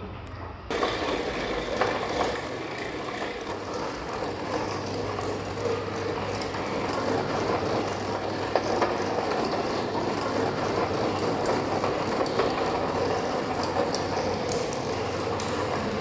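Small wheels of a cart being pulled across a hard floor, a steady rolling rattle with scattered clicks and knocks, starting suddenly just under a second in.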